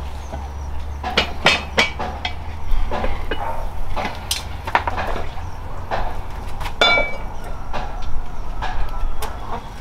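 A run of irregular knocks and clinks over a low hum, with one brief ringing clink about seven seconds in.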